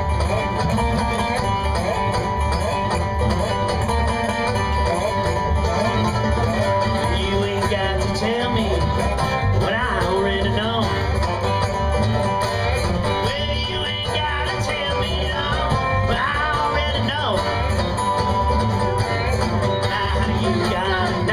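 A bluegrass string band playing an instrumental intro live, with banjo and guitar over a steady bass beat.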